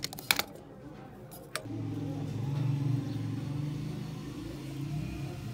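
A few small clicks, then one click followed at once by an electric madhani (churning machine) motor starting and running with a low, rough hum that swells and eases slightly.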